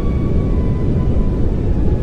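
Steady pink noise, an even hiss weighted toward the low end. A few faint held tones fade out within the first second and a half.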